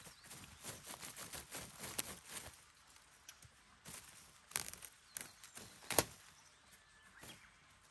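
Black plastic mulch film crinkling and crackling under gloved hands, with soil scraped as a planting hole is opened in it. The sounds come as short irregular crackles, the sharpest one about six seconds in.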